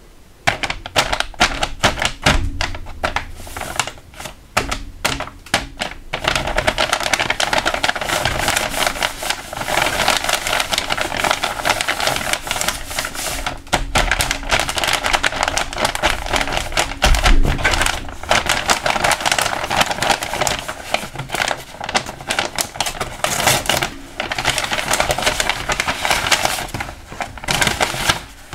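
Paper squishy crinkling and crackling as hands press and squeeze it, with many sharp crackles, sparse for the first few seconds and then nearly continuous. Near the end, paper blind bags rustle as they are handled.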